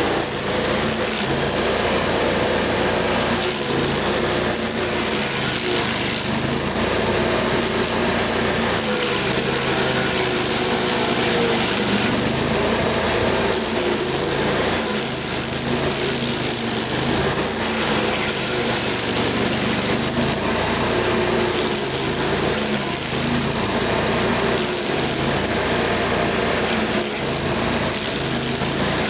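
LASKI F500H stump grinder running hard as its cutter wheel grinds into an ash stump. It makes a steady loud engine-and-chipping noise, with the engine note stepping up and down every second or two as the wheel takes each bite.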